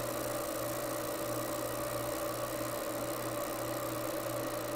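30-watt fiber laser engraver running as it engraves lettering into an AR-15 lower receiver: a steady machine hum with a constant buzzing tone over hiss.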